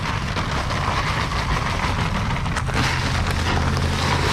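Dry Quikrete concrete mix pouring from a paper sack into a fence post hole: sand and gravel sliding out in a steady hiss. A low steady hum runs underneath and grows near the end.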